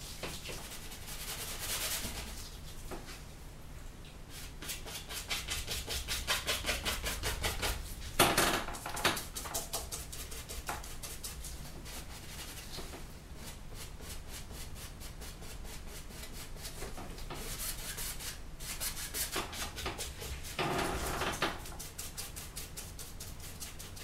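Stiff paintbrush scrubbing oil paint onto a stretched canvas in quick, repeated strokes. A sharper knock comes about eight seconds in, and a louder patch of scrubbing around twenty-one seconds.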